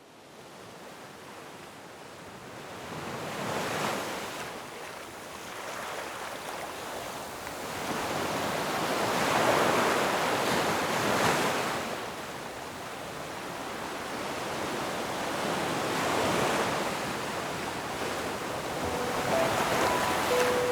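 Ocean waves surging and falling back in slow swells, one every several seconds, with a hiss of wind. A few soft held music notes come in near the end.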